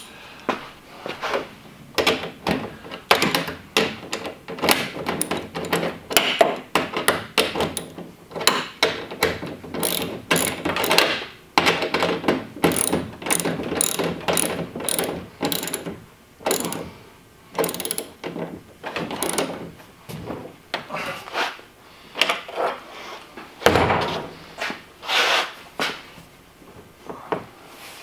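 Ratchet wrench clicking in quick, irregular runs as nuts are tightened onto bolts through slotted steel angle hangers, with metal clinks and a single heavier knock about three-quarters of the way through.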